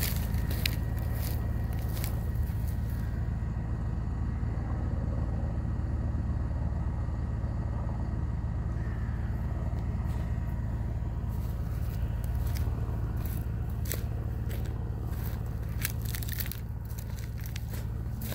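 Tractor engine running steadily with a low hum. Crunching, crackling footsteps on dry crop stubble come over it near the start and again in the last several seconds.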